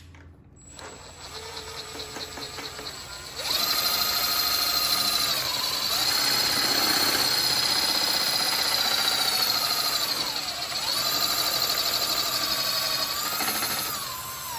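Electric power drill spinning a shaft to clean it up. It runs slowly at first, jumps to full speed a few seconds in, dips in speed once partway through, then winds down near the end.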